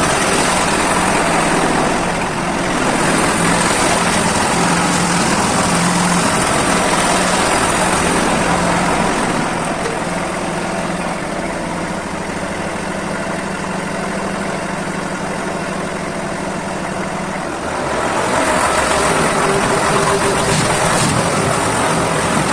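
Agrale tractor engine running steadily as it works a homemade backhoe. It eases off for a stretch in the middle and picks up again about three-quarters of the way in.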